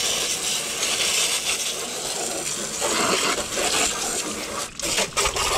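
Garden hose spray nozzle spraying water onto a lawn tractor being cleaned, a steady hiss that cuts out briefly a few times near the end.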